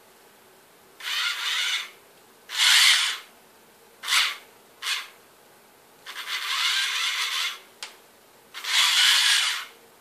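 Small electric motors in a Tamiya gearbox driving a 1/35-scale RC tank's tracks in six short bursts, each starting and stopping abruptly, the longest about a second and a half.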